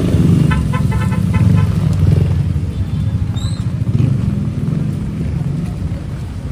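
Street noise in a typhoon: a steady low rumble of wind and traffic, with a quick series of short high vehicle-horn beeps in the first second and a half.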